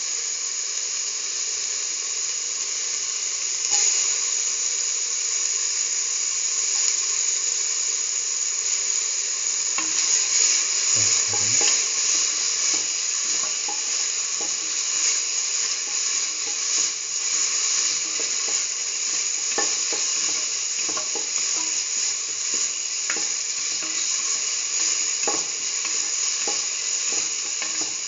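Chopped onion and garlic sizzling steadily in hot oil in a steel pan. Tomato pieces drop in about eleven seconds in with a low knock, and a spatula scraping and tapping the pan ticks now and then as the sizzling mixture is stirred.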